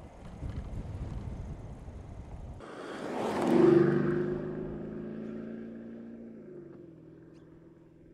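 Mercedes-Benz S500 Coupe's twin-turbo V8 driving past and away: a low road rumble, then after a sudden change a throaty engine note swells to its loudest about three and a half seconds in and fades steadily as the car drives off.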